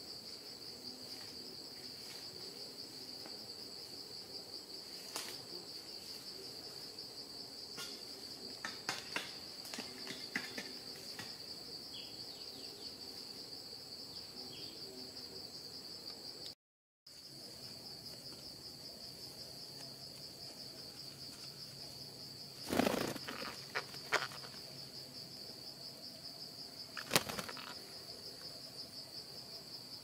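Steady, high-pitched drone of insects in the undergrowth. A few short, sharp knocks or rustles stand out, the loudest about three-quarters of the way through. The sound cuts out for a moment just past the middle.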